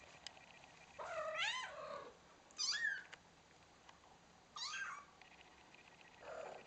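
Cats meowing: about four short, high-pitched meows, the first the longest and the last fainter and lower.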